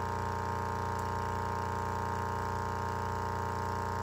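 A 15 W Toshiba loudspeaker playing a 30 Hz sine wave from a function generator through a small amplifier, giving a steady low buzzing drone as it vibrates a wooden test plate.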